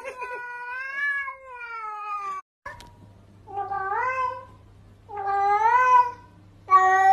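Domestic cats meowing in long, drawn-out, wavering meows: one long meow, a sudden cut, then three separate meows that rise and fall in pitch, over a low steady hum.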